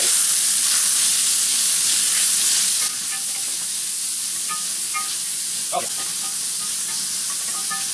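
Chicken breast pieces sizzling in hot bacon grease in a wok as they go in, stirred with a wooden spoon. The sizzle is loudest for the first three seconds, then drops a step and carries on steadily, with a few light scrapes of the spoon.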